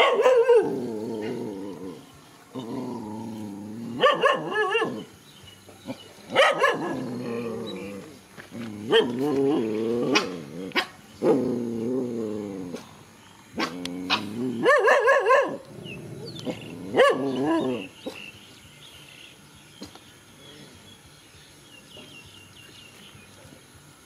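Dogs growling in a tense face-off: a string of long, wavering growls, each one to two seconds, broken by sharp barks. It stops after about eighteen seconds.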